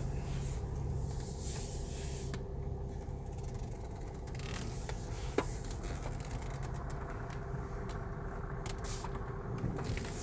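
Inside the cabin of a 2020 Skoda creeping along at walking pace: a steady low engine and road hum, with a few light clicks and rustles, the sharpest about five seconds in.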